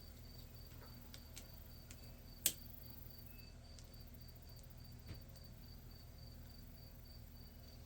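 Faint, steady chirping of a cricket, about three chirps a second, over a low hum, with one sharp click about two and a half seconds in.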